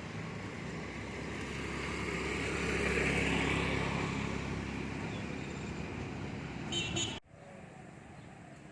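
A motor vehicle passing on the road, its noise swelling to a peak about three seconds in and then fading. A brief high tone comes near the end, and the sound then cuts off suddenly to quieter street ambience.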